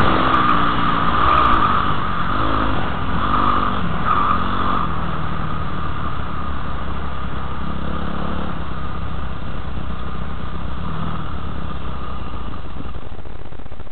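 Motocross bike engine heard from the rider's helmet camera: the revs rise and fall a few times in the first few seconds, then it settles to a lower, steady running speed.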